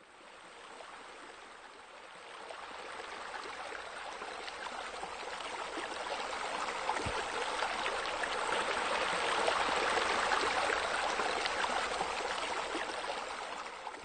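Water falling and splashing into a pool in a steady rush, growing louder over the first ten seconds and easing a little near the end.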